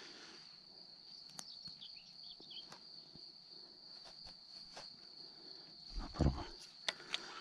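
A steady, high-pitched insect trill carries on throughout, over scattered small clicks from hands handling the rod, reel and a small lure. About six seconds in there is a louder rustling knock of handling close to the microphone.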